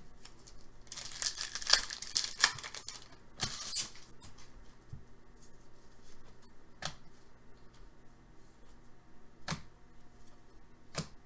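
An Upper Deck SP Authentic hockey card pack's wrapper torn open by hand with a crinkling rip lasting about two seconds, then a shorter rustle. After that come a few sharp single clicks as the cards are handled and flicked through.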